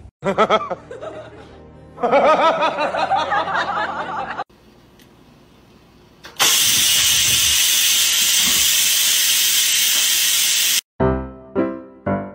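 A cat meowing. After a short lull, an electric pressure rice cooker lets off steam in a loud, steady hiss that starts suddenly and cuts off about four seconds later. A bouncy tune with evenly repeated notes starts near the end.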